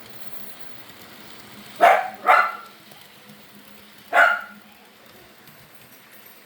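Dog barking three times: two quick barks about two seconds in, then one more about two seconds later.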